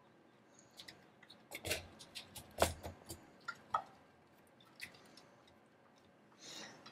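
Small sharp clicks and taps of plastic model parts and wiring being handled: a quick run of them in the first few seconds, then a few scattered ticks and a short soft rustle near the end.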